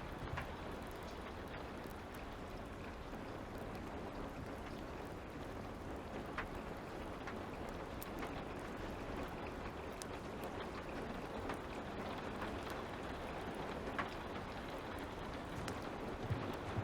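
Light rain falling steadily with a fire crackling: an even hiss with scattered sharp pops and ticks.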